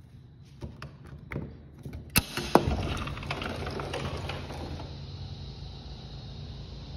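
Sliding glass patio door being unlatched and slid open: a few small clicks and knocks, then two sharp clacks of the latch and frame about two and a half seconds in. After that a steady rushing outdoor noise comes in through the open door.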